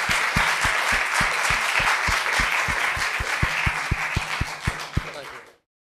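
Audience applauding, with a steady beat of louder claps about four a second standing out, until the sound cuts off suddenly near the end.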